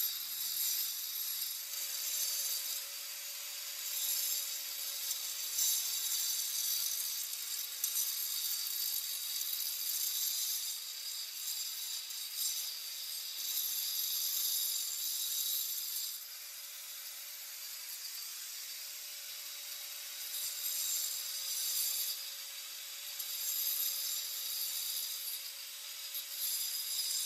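Electric angle grinder with a concrete-cutting disc grinding along a crack in a plastered concrete wall, opening it into a groove for crack filler. A steady hiss over a faint, slightly wavering motor whine, dropping a little in level about halfway through.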